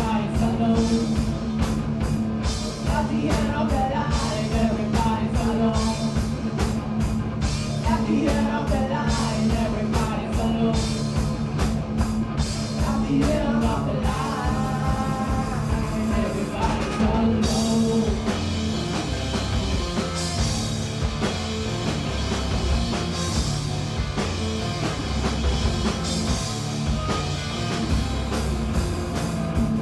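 Punk rock band playing live, with drums, guitar and singing. The drum beat changes about halfway through, from a steady pattern of cymbal strokes to a looser wash of crashing cymbals.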